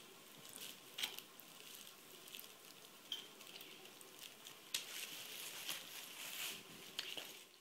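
Metal spoon spreading a wet minced-meat and tomato filling over rounds of raw dough on a baking tray: faint, soft, wet scraping, with a few sharp clicks of the spoon.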